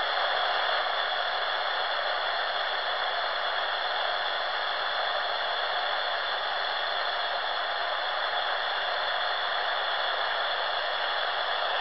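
Steady static hiss from a Silvercrest SWED 250 shortwave receiver's speaker, tuned to 14215 kHz in FM mode, with a few faint steady whistles under the hiss and no voice coming through.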